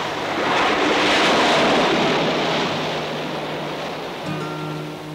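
Ocean surf washing onto a beach: a rush of wave noise that swells about a second in and then slowly ebbs. Near the end, plucked guitar notes of the theme song's intro come in over it.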